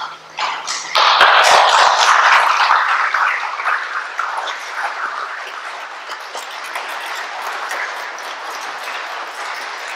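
Audience applauding: the clapping starts suddenly, swells about a second in, then slowly thins out.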